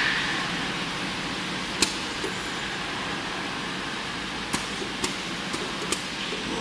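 Powder filling machine and its bottle conveyor running with a steady mechanical hum. Sharp clicks from the machine's mechanism sound once about two seconds in, then four more times in the last two seconds.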